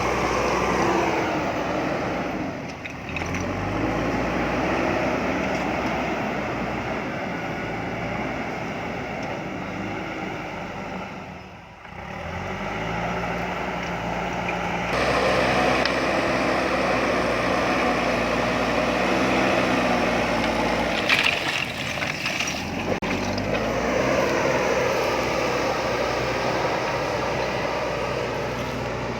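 Diesel engine of a JCB backhoe loader running under load, its speed rising and falling repeatedly as the machine works. A few sharp knocks sound about two-thirds of the way through.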